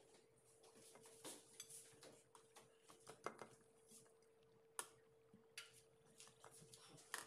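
Faint crinkling and crackling of thin dioul pastry sheets being handled, and a silicone pastry brush dabbing over them, with a few sharp clicks over a faint steady hum.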